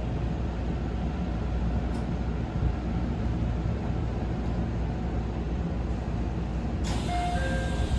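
JR Central 313 series train door cycling: a sudden hiss of the door mechanism about seven seconds in, then the door chime, a three-note falling pattern that starts to repeat, over a steady low rumble of the train.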